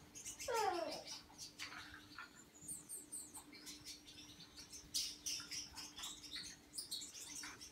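Caged Gouldian finches singing: a quiet, scattered series of short high chirps and clicks, with a brief falling note about half a second in.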